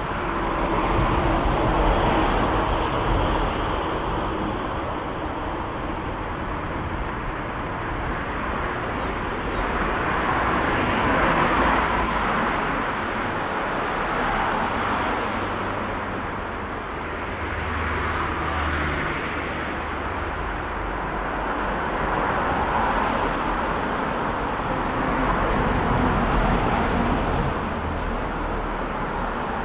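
Road traffic on a city street: several cars pass one after another, their tyre and engine noise swelling and fading every few seconds.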